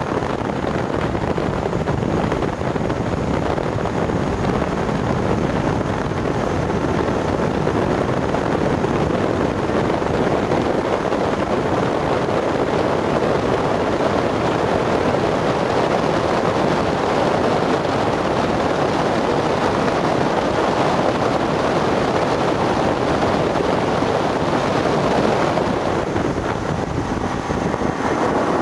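Steady rushing noise of a motorboat running across calm water, with wind on the microphone.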